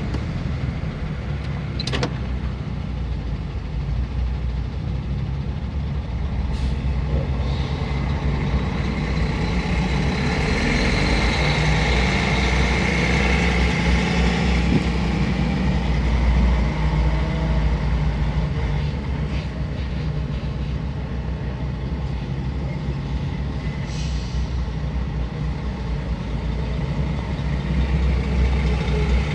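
Heavy truck engines running in a slow highway traffic queue, a steady low rumble. There are a click about two seconds in and a few short hisses, one near the end.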